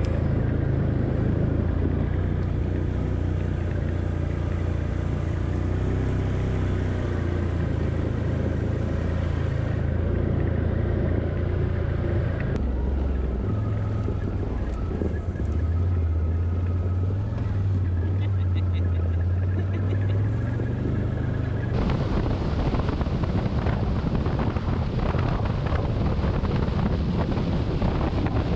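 Vehicle engine running with road and wind noise while driving. There is a steady low drone whose pitch shifts in steps a few times.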